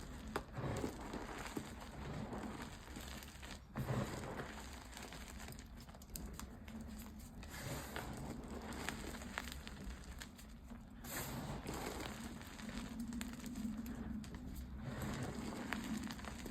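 Dyed gym chalk being crushed and crumbled: continuous crunching, dense with small crackles and clicks.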